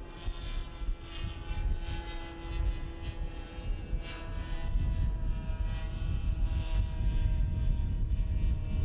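Radio-controlled VTOL tailsitter plane's motor and propeller droning in flight overhead: a steady whine of several tones whose pitch shifts slightly about four seconds in. A low rumble underneath grows louder over the second half.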